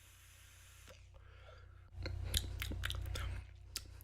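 An e-cigarette being drawn on: a faint hiss of air, then about two seconds in the coil crackles with many sharp irregular clicks over a low hum for about a second and a half.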